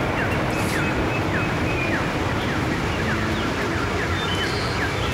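Steady rushing noise of water from the nearby waterfall and stream, with short falling chirps repeating about two or three times a second over it.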